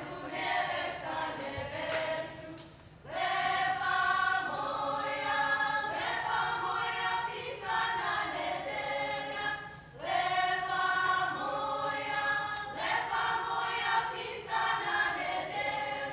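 A group of women singing a Međimurje folk song together, in long sung phrases with short breaks for breath about three seconds and ten seconds in.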